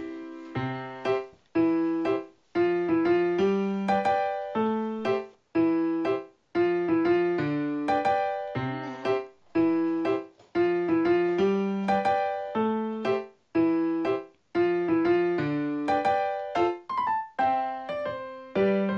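Background music: a keyboard tune with a piano sound, notes and chords struck in a regular rhythm.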